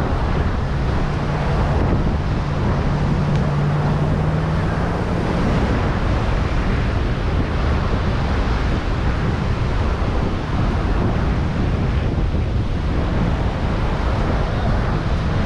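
Wind buffeting the microphone over the steady wash of ocean surf. A low steady hum sounds through the first five seconds or so, then fades out.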